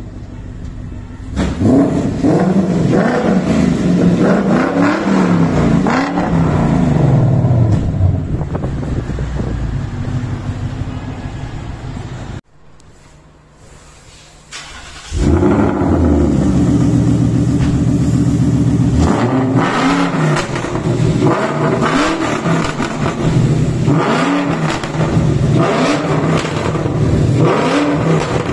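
Ford Mustang GT's V8 through an aftermarket performance exhaust, revving and pulling with its pitch rising and falling. The sound drops off abruptly about twelve seconds in, stays quieter for about three seconds, then comes back loud.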